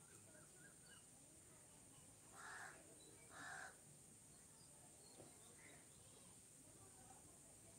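Near silence with faint background hiss, broken by two short bird calls about a second apart, some two and a half seconds in.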